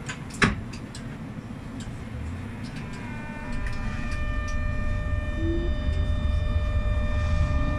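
GEC-Alsthom TFS tram starting to move off. A sharp click comes about half a second in, then after about three seconds the traction equipment's steady whine of several tones sets in as the low running rumble grows louder.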